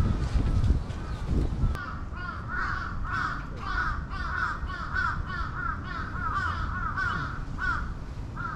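Crows cawing in a quick run of short calls, about two a second, starting about two seconds in and carrying on to the end.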